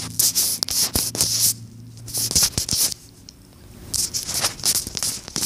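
Handling noise on a phone's microphone: irregular bursts of rubbing and scratching with scattered clicks, as fingers and the phone move against each other, over a low hum that stops about two seconds in.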